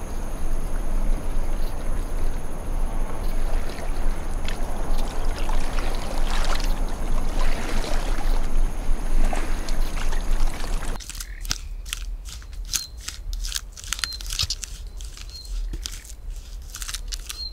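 Water sloshing and trickling as a hippopotamus wades into a shallow river. About eleven seconds in, this gives way to a quieter stretch of sharp, irregular clicks and crunches.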